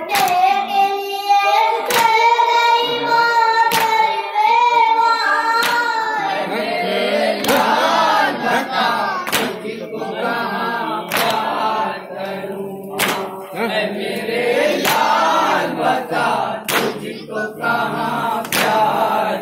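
A lone voice sings a Muharram lament (noha), and from about six seconds in a crowd of men joins the chant. Through it runs a steady beat of hands striking chests (matam), one strong strike about every two seconds.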